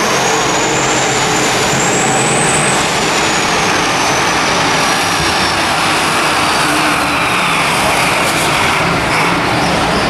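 Super stock diesel pulling truck's engine running at full throttle under heavy load from a weight-transfer pulling sled, with a high turbocharger whistle that climbs over the first few seconds and then slowly falls.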